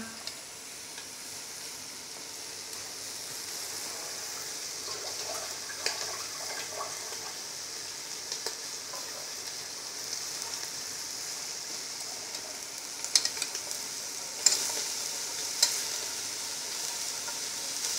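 Veal and chopped herbs sizzling steadily as they fry in a pot. Near the end come a few sharp clicks as red beans are tipped in from a container.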